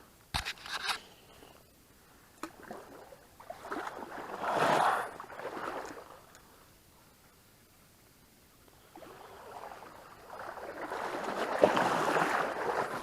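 Creek water rushing, swelling up twice for a few seconds each, with a few clicks near the start.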